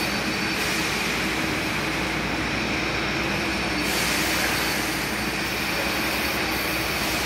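Tornado Tiger 60:70 airless paint sprayer pump running, a steady hissing rumble; the hiss grows brighter about four seconds in.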